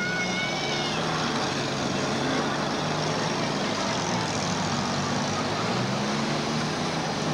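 Several demolition derby cars' engines running and revving at once, over a steady, dense din.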